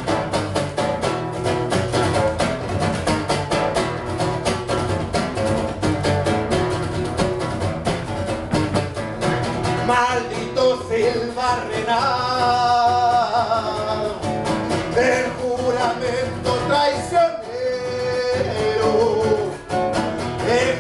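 Acoustic guitar strummed in a quick steady rhythm, played live; from about ten seconds in a man sings along over it.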